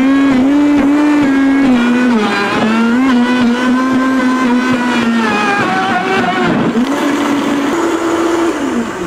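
Vitamix blender running at speed, liquefying chunks of aloe vera and prickly pear cactus in orange juice. The motor whine holds a steady pitch that drops about two seconds in, then wavers and dips a few times as the load shifts.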